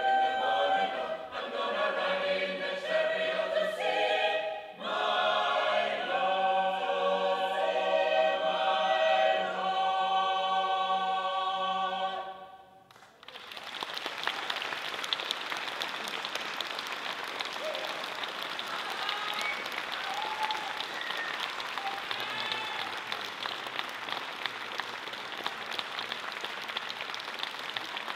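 Mixed choir singing a spiritual unaccompanied, closing on a long held chord about halfway through. After a brief pause an audience applauds steadily.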